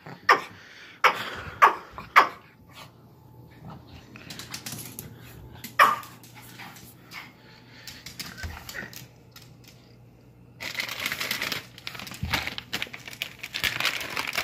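Pomeranian yapping: four sharp yaps in the first two seconds and one more about six seconds in. From about ten and a half seconds a plastic treat bag crinkles as it is handled.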